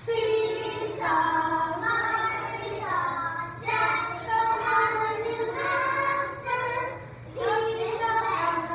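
A class of young kindergarten children singing a song together, in short phrases of held notes.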